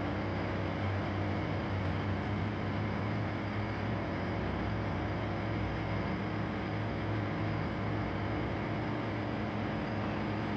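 A steady engine drone with a low hum and a hiss over it, unchanging throughout.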